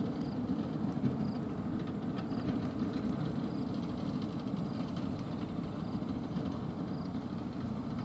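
Komatsu crawler bulldozer working under load: its diesel engine runs steadily beneath the clanking rattle of its steel tracks as it pushes soil with its blade.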